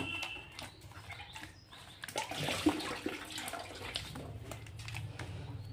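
Wet minced-chicken kebab mixture squished and worked by hand in a steel bowl, giving irregular squelching with light clicks.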